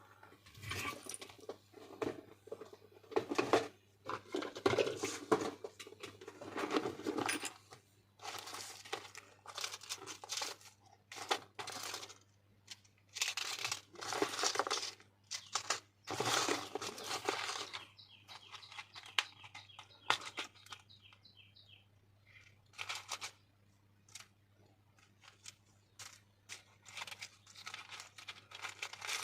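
Rustling and crinkling of small plastic packets, handled in irregular bursts while spare phone charging sockets are sorted through, over a steady low hum.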